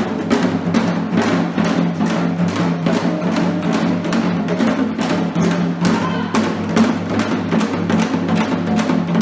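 Percussion-driven music: fast, dense drum strokes over a steady low drone, cutting off abruptly at the very end.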